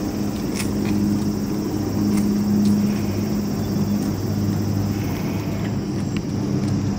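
An engine runs steadily with a low, even drone that does not change.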